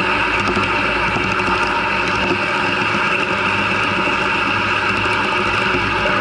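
Model train running along the track: the steady rolling noise of wheels on the rails and motor hum, picked up close by the camera riding on the train, with faint ticking over the rail joints and turnouts.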